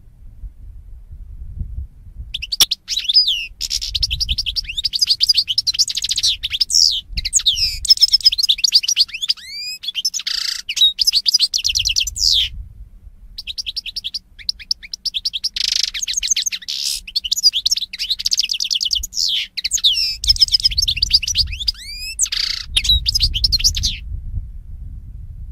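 European goldfinch singing: a long, fast run of liquid twitters, rapid trills and buzzy notes, starting about two seconds in, breaking off briefly about halfway, then continuing until shortly before the end.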